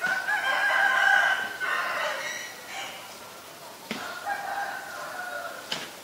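Domestic rooster crowing: one long, loud crow over the first few seconds, then a second, fainter crow about four seconds in. Two short clicks are also heard.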